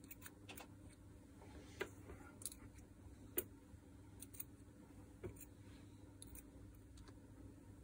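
Faint, scattered clicks of small metal planetary-gearbox gears and steel tweezers being picked out and set down one by one, the sharpest click about three and a half seconds in, over a low steady hum.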